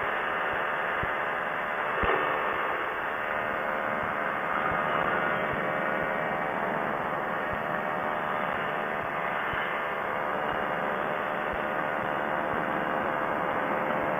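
Quicksilver ultralight's engine and pusher propeller running steadily at flight power, a constant drone mixed with the rush of wind over the open airframe.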